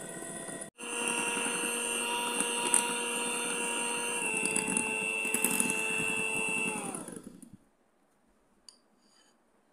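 Electric hand mixer running steadily, its beaters whipping a foamy cake mixture in a glass bowl. The motor's pitch shifts slightly about four seconds in, then it winds down and stops after about seven seconds.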